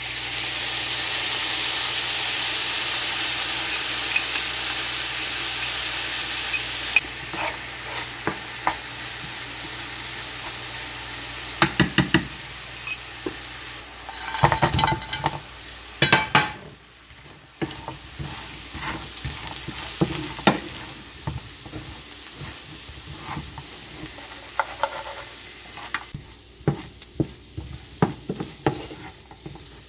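Minced garlic sizzling in hot oil in a nonstick frying pan. The sizzle surges loudly as the fish sauce glaze is poured in, then settles after about seven seconds. Midway, fried chicken wings are tipped into the pan with a run of knocks, and after that a wooden spatula stirs them with scattered taps and scrapes.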